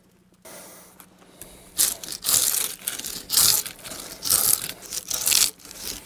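Draw knife peeling thick bark off a fairly fresh ponderosa pine log: a run of quick, irregular scraping and tearing strokes starting about two seconds in, the bark coming away easily.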